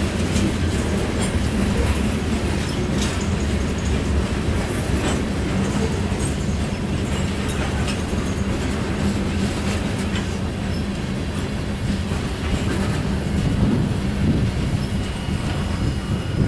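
Covered hopper cars of a freight grain train rolling past over the rails: a steady low rumble with wheels clacking.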